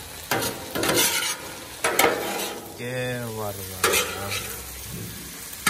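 A metal spatula scraping across the steel cooktop of a Blackstone 36-inch griddle in several quick strokes, turning shrimp and vegetables, over the steady sizzle of the food frying.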